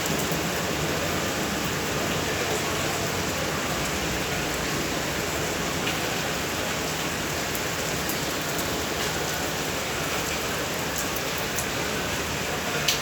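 Steady rain falling, an even dense hiss with scattered drop taps, and one sharper tap just before the end.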